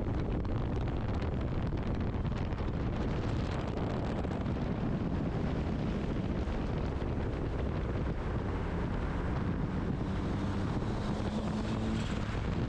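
Wind buffeting the microphone and road rush of a car driving at speed, heard through an open car window. A low engine drone comes in about two-thirds of the way through and climbs slightly in pitch.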